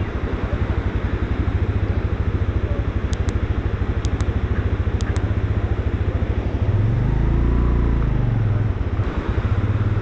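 A Suzuki GS150 motorcycle's single-cylinder engine runs steadily under way. About seven seconds in, its note climbs and then drops back as the rider revs it.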